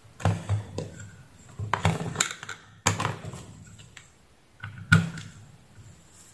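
A bare router circuit board being handled and set down on a hard workbench while a DC power lead is fitted to its jack: four short bouts of knocks and clatters, the loudest about five seconds in.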